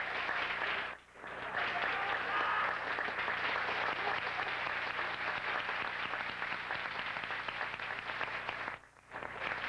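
Crowd applauding in an arena as the winner's arm is raised, dropping away briefly twice, about a second in and near the end.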